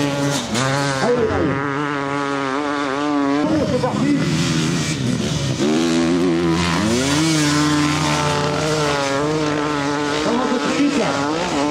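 Dirt bike engine revving hard on a steep hill climb, the pitch wavering up and down constantly as the throttle is worked, with a sharp climb in revs about seven seconds in.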